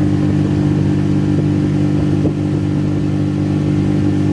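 Boat motor running steadily at idle speed.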